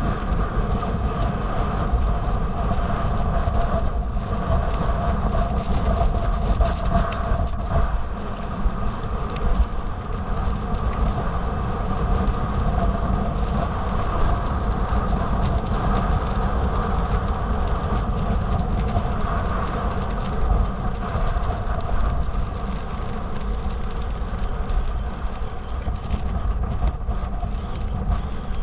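Wind buffeting the microphone with a heavy low rumble, over the steady scraping hiss of a snowboard sliding on packed snow.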